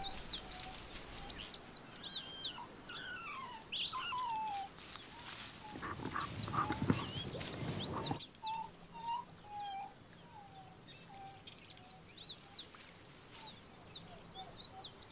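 Small birds chirping and calling repeatedly in the bush, many short high notes. From about six to eight seconds in there is a burst of rough, noisy sound.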